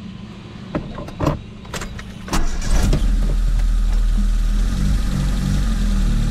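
A few sharp clicks and knocks, then about two and a half seconds in a turbocharged Mitsubishi Mirage's 1.5-litre single-overhead-cam engine starts and settles into a steady, loud idle.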